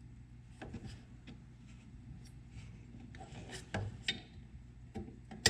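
Faint scattered clicks, taps and rubbing of a halogen headlamp bulb being seated by hand into its plastic housing, its tabs finding their notches, with a louder tap just before 4 seconds in and a sharp click near the end.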